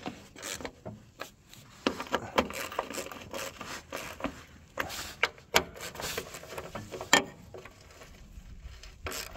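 Hand ratchet and socket on the bolts of an excavator's hydraulic reservoir cover: irregular metal clicks and scrapes as the bolts are run in, with a couple of sharper knocks about halfway through.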